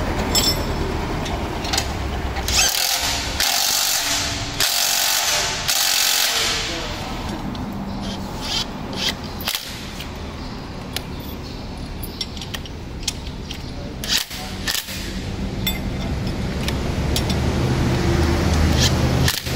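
Makita TW007G 40V cordless impact wrench hammering on bolts in short bursts, four close together a few seconds in, then a scatter of sharp metallic clicks from bolts and tools, over a steady low hum.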